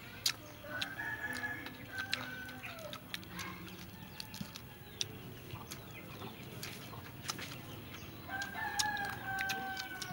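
A rooster crowing twice, each crow about two seconds long: once about a second in and again near the end. Scattered short sharp clicks run underneath.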